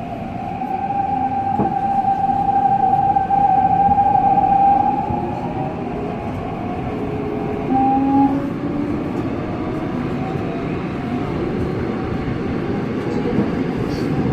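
Seoul Subway Line 6 train running, with a strong steady high whine over the rumble for the first five seconds, then fainter tones that slowly drift in pitch. This is the strange noise the train makes on this stretch.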